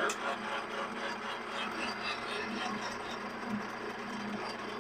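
Vintage Ward's Powr-Kraft metal lathe running with a steady hum and whir, its carbide tool finishing a turning pass on a mild steel rod.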